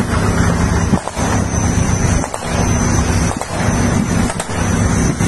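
Engine of a tracked armoured vehicle running steadily at close range, with wind buffeting the microphone and a few brief dips in level.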